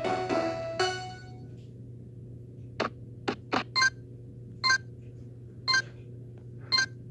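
Electronic sound effects: a short ringing chime, then a few quick ticks and short, pitched beeps about once a second, over a steady low hum.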